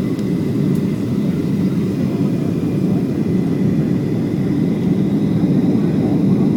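Steady drone of an airliner's cabin in flight, engine and airflow noise heard from inside, with a faint, high, steady whine above it.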